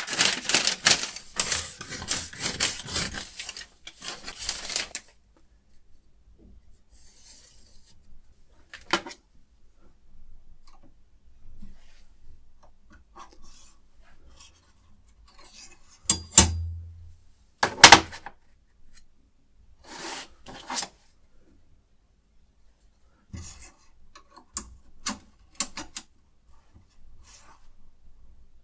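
Rapid back-and-forth scraping of a sharpening stone along a knife blade in a guided sharpening system, stopping about five seconds in. After that come scattered clicks and knocks of the metal rig being handled, the loudest a heavier thump near the middle.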